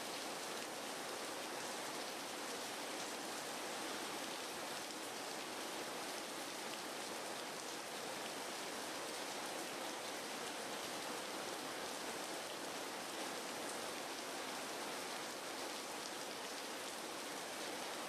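Steady, even hiss of rain.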